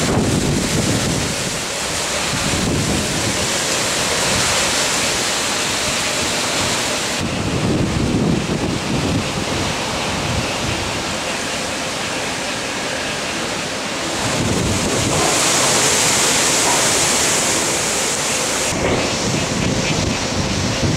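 Strong hurricane wind with rain, the gusts buffeting the microphone in low rumbles. The noise changes abruptly a few times, about a third of the way in and again near three-quarters of the way through.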